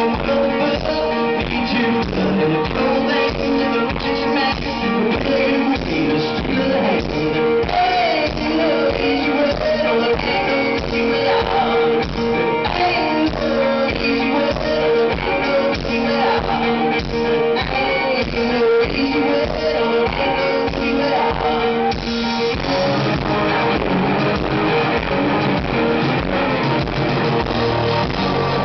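A live rock band plays loudly through the PA, recorded from the crowd. Guitar is heard over a steady beat with a sung melody, and lower bass notes come in about 22 seconds in.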